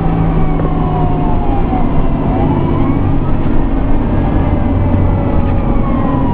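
Fire engine siren wailing, its pitch slowly rising and falling, over the heavy drone of the Pierce Enforcer fire engine's engine and road noise, heard from inside the cab while it runs to a call.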